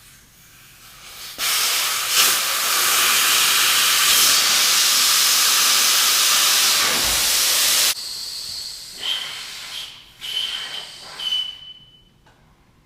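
Air hissing out of a tire through its valve as it is deflated to clear debris caught in it: one long, loud rush of about six seconds, then several shorter bursts, some with a thin high whistle.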